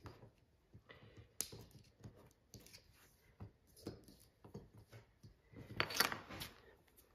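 Hand tools and leather being handled on a workbench: scattered light clicks and scrapes, with a louder burst of rustling and knocking about six seconds in.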